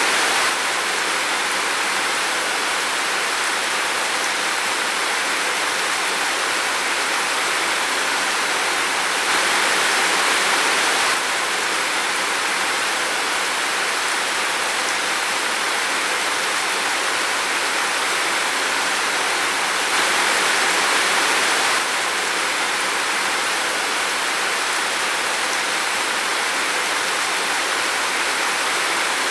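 Steady heavy rain falling in a forest, an even, unbroken hiss that swells slightly louder twice for a couple of seconds.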